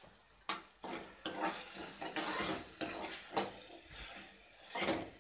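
Metal ladle stirring and scraping round a metal kadai in repeated strokes, over the steady hiss of onions, capsicum and sauces sizzling in hot oil.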